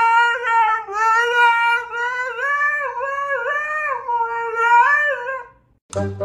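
A dog howling in one long wavering tone that rises and falls repeatedly without a break, then stops abruptly about five and a half seconds in.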